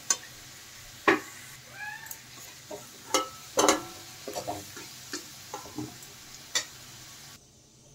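Mustard oil sizzling in a metal kadai as fried potato cubes are lifted out with a steel spatula, which clinks and scrapes against the pan several times. The sizzle cuts off suddenly near the end.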